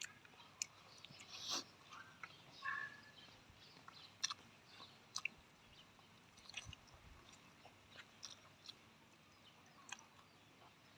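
A person chewing food, faint, with irregular soft mouth clicks and smacks.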